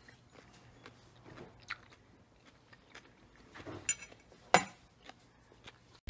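A person chewing a mouthful of coleslaw, faint, with a couple of sharp clicks about four seconds in.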